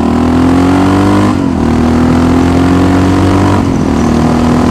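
Honda XR650L's single-cylinder engine running through a DG slip-on exhaust as the bike accelerates. The pitch climbs slowly, dips briefly about a second and a half in and again near the end as the rider shifts up, then climbs again.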